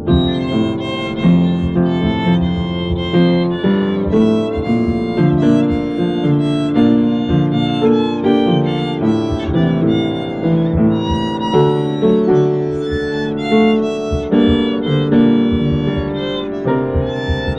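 Violin playing a pop melody with upright piano accompaniment, the two in duet.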